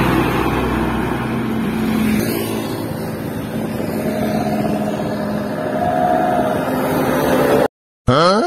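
A truck passing close by on the road, its engine and tyres giving a heavy low rumble that eases off after about two seconds, then traffic noise with another engine drone rising in pitch as a vehicle approaches. The sound cuts off suddenly near the end, followed by a short rising tone.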